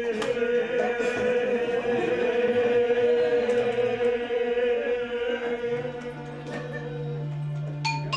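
A man's held sung drone with a whistle-like overtone melody wandering above it, in the manner of overtone singing. Near the end the voice gives way to a low steady tone, and a mallet instrument strikes a ringing note.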